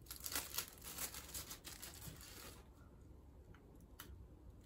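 Small clear plastic packaging bag crinkling and tearing as it is opened by hand, a dense rustle for about two and a half seconds. After that, only a few faint clicks as the small item is handled.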